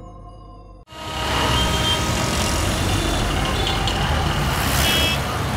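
Busy city street traffic: buses and other road vehicles running, with short high horn beeps a couple of seconds in and again near the end. Before it, the quiet tail of a chiming electronic logo jingle cuts off just under a second in.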